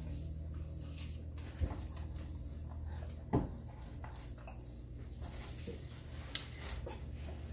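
Quiet tableside handling sounds: a few knocks and clicks as a glass bottle and dishes are handled, the sharpest about three and a half seconds in, over a low steady hum.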